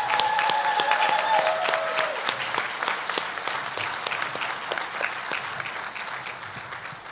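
Audience applause: a crowd clapping, starting loud and slowly dying away.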